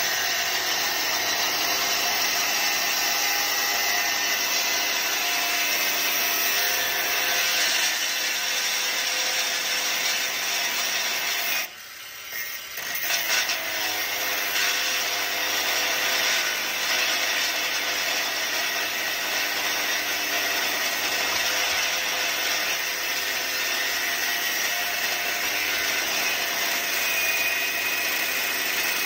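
Boshun BSAG100BL cordless brushless angle grinder cutting a rusty steel plate with an abrasive cut-off disc: a steady high motor whine over the grinding of the disc in the metal. Near the middle the sound cuts off for a moment, then picks up again unevenly.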